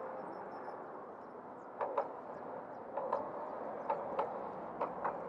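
Riding noise from a Razor MX500 electric mini dirt bike: a steady rush of wind and wheels. From about two seconds in there is a run of short knocks in pairs, about one pair a second.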